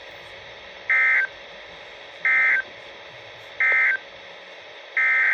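Emergency Alert System SAME data tones, the raspy two-tone digital bursts, played over the radio. Three short, evenly spaced bursts, the end-of-message code, close the weather statement. Near the end a longer burst begins: the header of the next alert.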